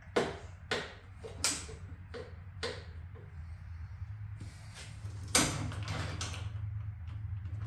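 Metal hand tools clinking and knocking against the engine as bolts are worked on: a handful of sharp clanks in the first three seconds and a louder one about five seconds in, over a steady low hum.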